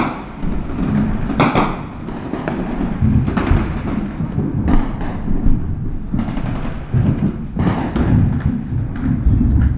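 Gunfire in an irregular string of sharp shots, about one every second or so, over a steady low rumble.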